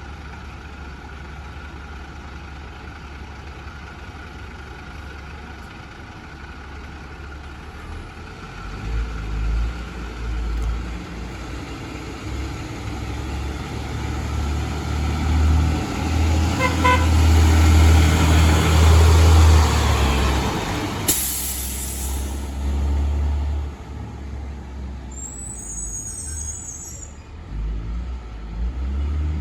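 A 2003 Blue Bird International 3800 school bus passing by. Its diesel engine rumble grows louder as it approaches, is loudest about two-thirds of the way through, then fades as it pulls away. Just after the loudest point comes a sudden sharp hiss of air lasting about a second.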